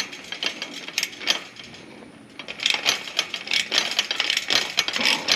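Rapid clicking of a hand tool tightening a bolt on a chain link gate fitting, a few scattered clicks at first, then a quick continuous run of clicks from about halfway through.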